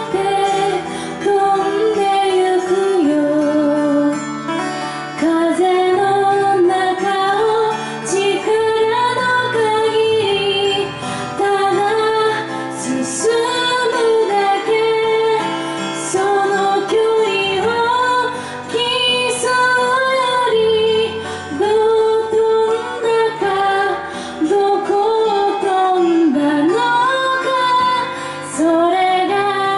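A woman singing a Japanese pop song, accompanying herself on acoustic guitar.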